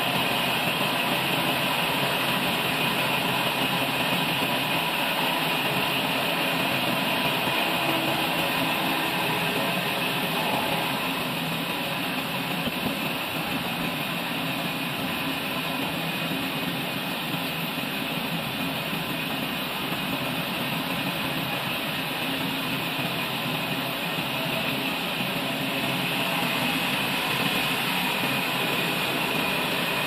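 Large log bandsaw sawmill running steadily: a constant, even machine noise from its motor, belt-driven wheels and blade.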